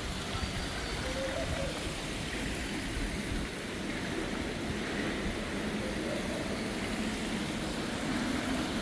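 Steady outdoor background noise, an even wash with faint distant voices in it.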